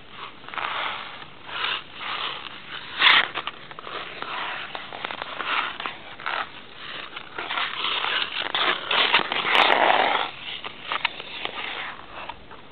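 Ice skate blades scraping and cutting across the ice in irregular strokes, with a sharp knock about three seconds in; the scraping is loudest and longest from about two-thirds of the way through.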